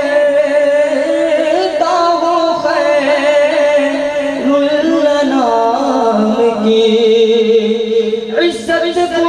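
Voices chanting durood (salutations on the Prophet) in a slow, drawn-out melody, with long held notes that slide between pitches.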